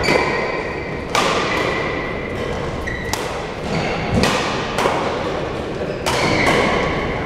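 Badminton rackets striking a shuttlecock in a doubles rally: about six sharp hits, roughly a second apart, each ringing on in the hall's echo.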